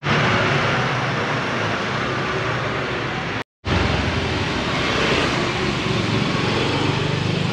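Street traffic noise: a steady wash of vehicle engines and tyres. The sound cuts out for a moment about three and a half seconds in.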